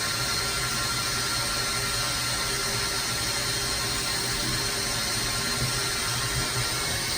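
CNC milling machine running with a steady mechanical whir and hum.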